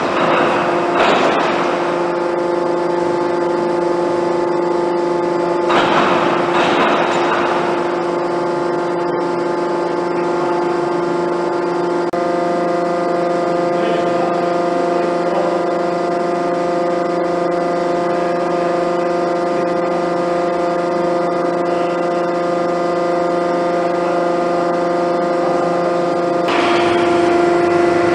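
Hydraulic Boldrini 300-ton dishing press running with a steady hum, with short rushing surges about a second in and again around six seconds in.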